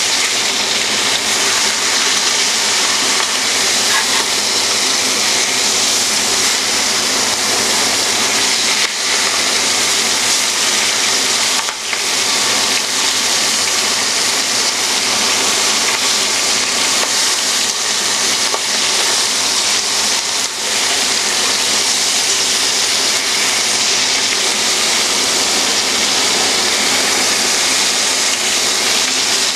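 Turkey legs searing in hot oil in a stainless steel braising pan: a loud, steady sizzle as the meat browns, with a couple of brief clicks.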